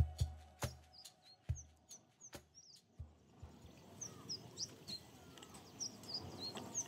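The last few drum beats of background music die away over about two and a half seconds. Outdoor ambience follows, with small birds chirping: short, high chirps several times a second over a quiet hiss.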